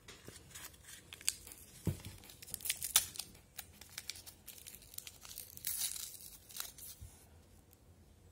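A small paper blind bag being torn open and unfolded by hand: crackly tearing and crinkling, loudest about three seconds in and again around six seconds, tapering off near the end.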